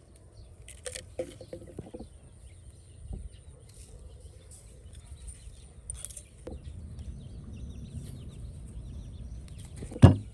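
Faint scattered light knocks and rustles over a steady high hiss. Near the end a loud sharp chopping strike begins a fast series of strokes.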